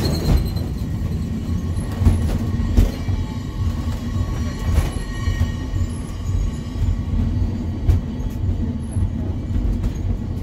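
Angels Flight cable-hauled funicular car running along its rails, heard from inside the wooden car: a steady low rumble with a faint hum and occasional sharp knocks from the running gear.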